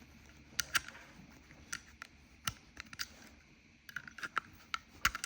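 Scattered light plastic clicks and taps, about a dozen at irregular intervals, as the trunk light housing's retaining tabs are pried loose from the trim.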